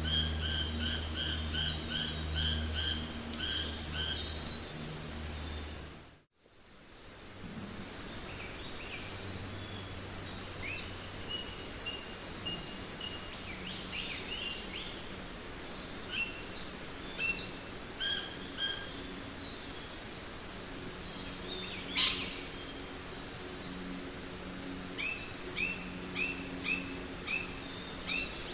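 Jungle ambience: several birds chirping and whistling in quick repeated series over a steady background hiss and low hum. About six seconds in the sound briefly fades almost to silence before a different bird chorus comes back in, with one sharp, loud call near the two-thirds mark.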